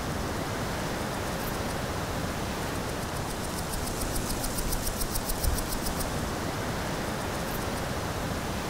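Steady outdoor rushing noise, with a fast, high-pitched rhythmic ticking for a few seconds in the middle.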